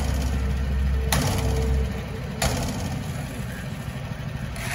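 Shovels and a rake scraping and striking on fresh asphalt a couple of times, over a steady low engine hum that drops away about two seconds in.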